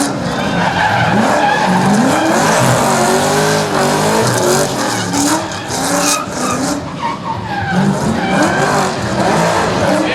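Holden Commodore's LS2 V8 revving hard and rising and falling in pitch as the car drifts, over the hiss of skidding tyres; the revs dip briefly about seven seconds in before picking up again.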